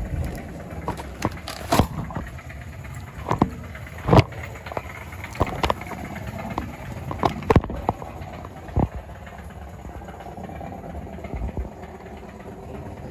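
Shopping cart being pushed through a store: a low rumble of the wheels rolling, with irregular knocks and rattles from the cart and the phone resting in it, loudest in the first nine seconds.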